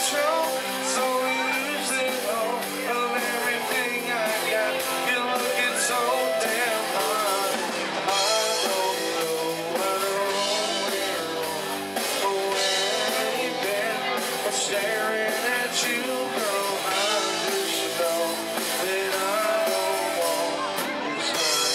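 Live rock band playing: electric guitars, bass guitar and drum kit, with a man singing lead into a microphone.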